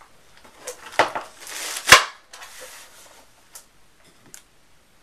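Monitor stand and panel being handled on a desk: a knock about a second in, then a sharp clack just before two seconds, the loudest sound, with brief scraping around it, and a few faint ticks later.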